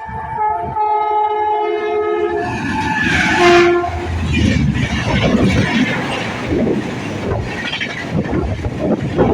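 Train horn sounding a long chord for about the first four seconds, then the train running past with a loud rush and a rhythmic clatter of wheels on the rails.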